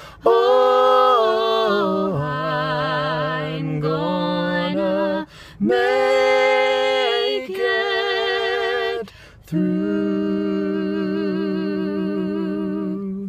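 A man and a teenage girl singing a gospel song together a cappella, holding long notes with vibrato. Two short breaks for breath come about five and nine seconds in, and the last long note stops near the end.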